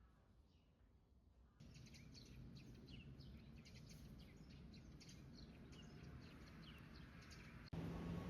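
Small birds chirping in quick, repeated short notes over a low steady background noise. Near the end the sound cuts to a different, steadier hum.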